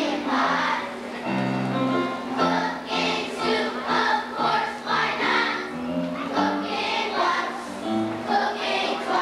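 A children's choir singing in unison, accompanied by an upright piano.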